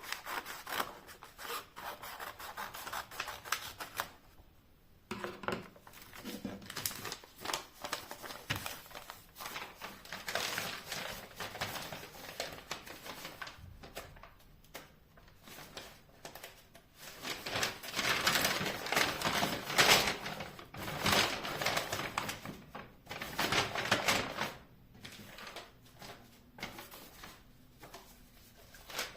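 Hands-on crafting and handling noises: a quick run of small clicks and taps mixed with rubbing and scraping of materials, louder and busier about two-thirds of the way through.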